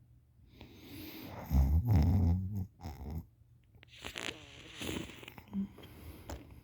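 A person asleep with their mouth open, snoring. One loud, wet-sounding, rattling snore comes about a second and a half in, followed by softer breathy snores.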